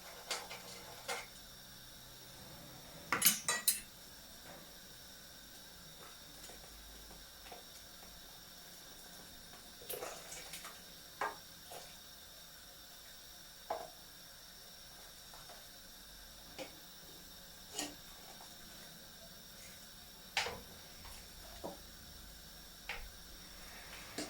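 Scattered clinks and knocks of kitchen utensils against pots and bowls during soup cooking, irregular and spaced a few seconds apart, with a quick cluster of louder clinks about three seconds in.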